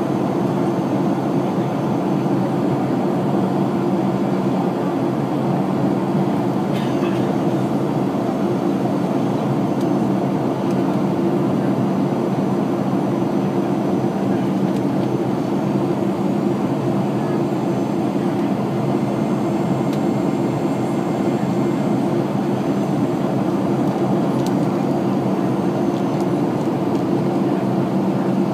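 Steady airliner cabin noise heard from inside the cabin: a constant low drone of engines and rushing air, with a steady hum in it, as the plane descends to land.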